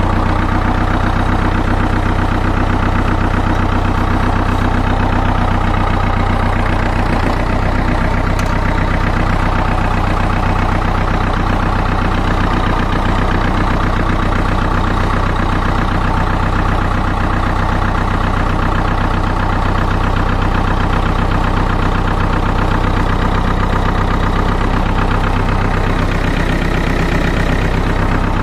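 Massey Ferguson 35 tractor engine running steadily at idle, heard from the driver's seat.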